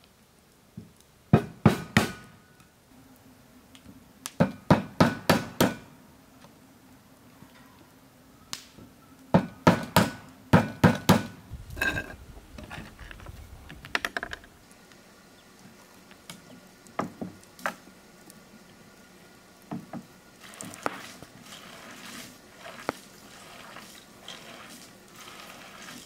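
Repeated sharp knocks in quick bursts: about three strikes, then about six, then about seven, followed by a few scattered single knocks.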